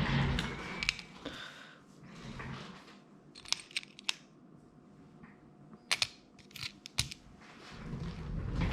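Small metal screws and hardware being handled, giving a scatter of sharp clicks and taps: a few together about three and a half seconds in and more around six to seven seconds, with soft rustling between.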